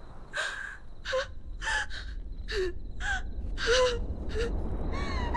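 A woman gasping and whimpering: about eight short, shaky, breathy gasps in uneven succession, over a low rumble, and a rising cry begins near the end.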